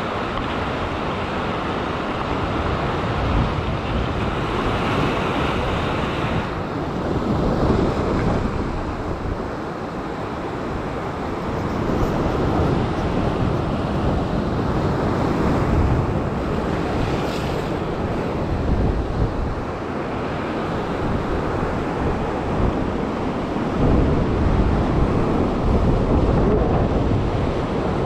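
Ocean surf breaking and washing over a rock shelf, swelling and easing with each set of waves, with wind buffeting the microphone.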